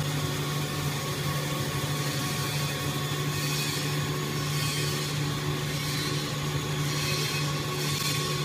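Puffed-snack food extruder and its electric drive running steadily: a constant low hum with a thin steady whine above it and a hiss.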